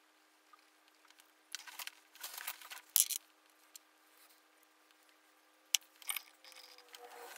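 Painting supplies being handled on a work table: two spells of brief rustling and scraping, each with a sharp click, the first about a second and a half in and the second about two seconds before the end.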